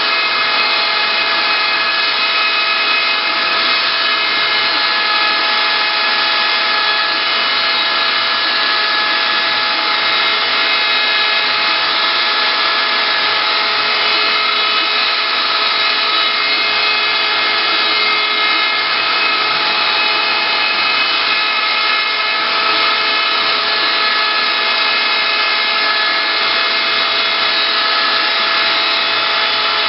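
CNC wood-carving router running steadily, its spindle giving a constant high whine of several steady tones over a dense hiss.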